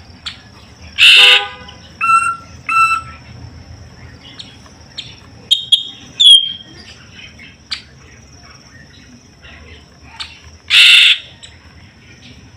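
Caged green leafbird (cucak ijo) calling in short, separate bursts. There is a loud harsh call about a second in, then two short chirps, a few sharp notes with a falling whistle near the middle, and another loud harsh call near the end. A faint steady high whine runs underneath.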